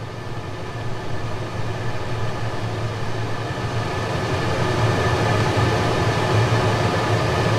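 Large industrial exhaust fan running with a steady low mechanical hum and whir, growing steadily louder.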